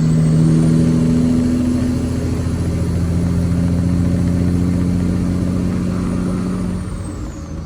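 Semi truck's diesel engine running steadily under way, with a thin high whine over it that drops away near the end.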